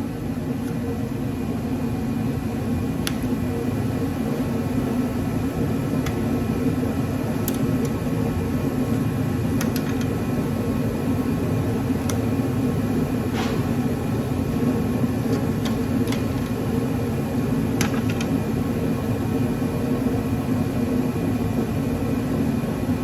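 Steady humming drone of a running shop heater, with a few faint clicks and taps of metal parts being handled.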